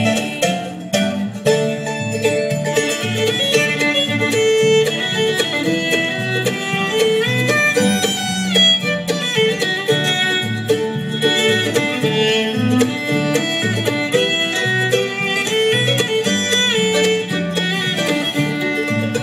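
Acoustic string band playing an instrumental break in a country song, with fiddle, guitar and banjo over a steady bass line.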